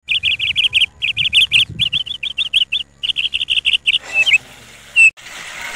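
A bird calling in fast runs of short, high chirps, about six or seven a second, with brief breaks between the runs. After about four seconds only a couple of single chirps remain.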